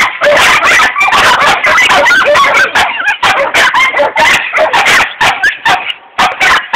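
Hog dogs barking rapidly and almost without a break as they bay a boar, several loud barks a second.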